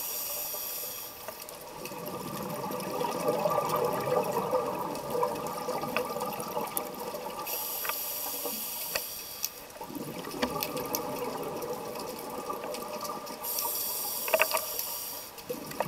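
Scuba diver breathing through a regulator underwater. A hissing inhale comes three times, at the start, about eight seconds in and near the end. Each is followed by several seconds of bubbling exhaust.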